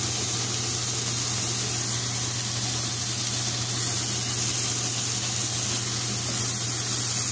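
Chapli kebabs sizzling steadily in a nonstick frying pan on a high flame, frying in the fat cooking out of the meat, with no oil added.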